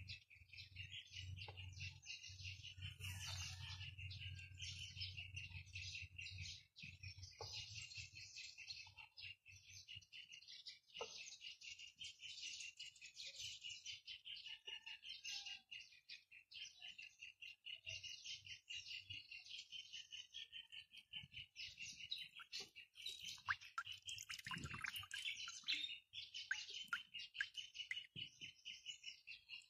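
Faint, continuous, rapid high-pitched chirping from small outdoor creatures, pulsing steadily without a break, with a few light taps.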